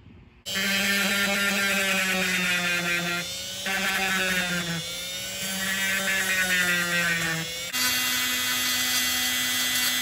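Handheld rotary tool with a small grinding bit running, starting about half a second in: a steady high whine that sags in pitch twice as the bit bears on the ground wire's ring terminal, grinding corrosion off it. Near the end it runs at a higher, steady pitch.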